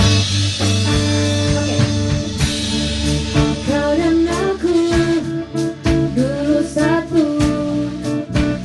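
A woman singing into a microphone over instrumental accompaniment. Her sung melody comes in about three and a half seconds in, after a stretch of accompaniment alone.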